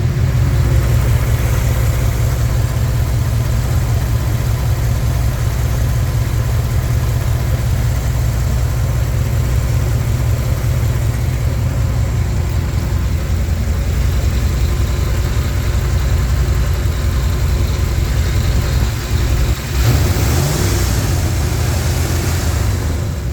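Freshly rebuilt 5.2-litre (318 Magnum) V8 of a 1995 Dodge Ram running steadily at idle, with a brief dip and pick-up in its note about three-quarters of the way through.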